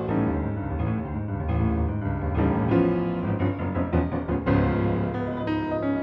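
Background music: piano playing a quick succession of notes and chords.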